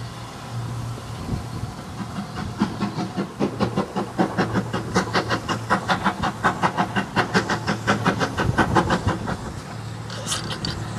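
Steam locomotive working towards the listener, its exhaust chuffing in an even beat of about four a second that grows louder, then stops near the end, followed by a short hiss of steam.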